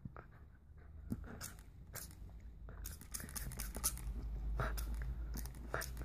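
Siberian husky puppy biting and chewing on the nozzle of a plastic spray bottle, teeth and tongue on plastic making irregular clicks and crunches that grow busier and louder about halfway through.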